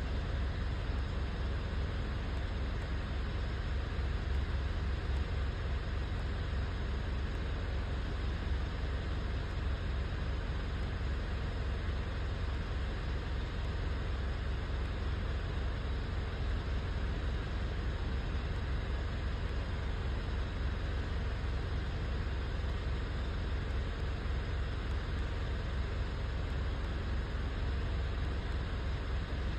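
Mitsubishi Triton engine idling with a steady low rumble, the engine being diagnosed for a misfire.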